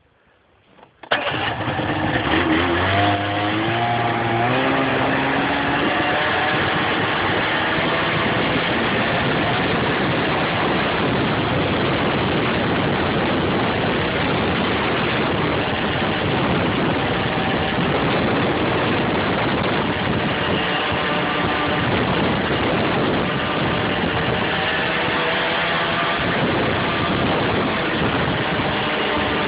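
Snowmobile engine starting abruptly about a second in, rising in pitch as it pulls away for a couple of seconds, then running steadily at speed with a dense, continuous noise.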